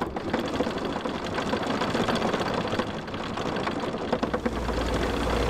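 Anchor chain paying out over the catamaran's bow windlass as the anchor is dropped: a fast, continuous rattling clatter. A low steady hum comes in near the end.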